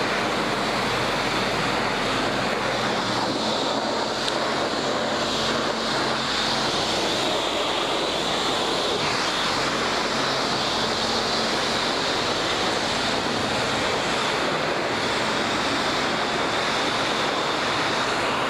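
High-pressure wash wand spraying foaming soap onto a dirt bike's underside and rear wheel: a steady, unbroken hiss of spray.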